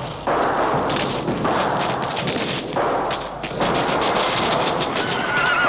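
Dramatized battle sound effect: dense, continuous crackle of gunfire. A wavering cry rises over it about five seconds in.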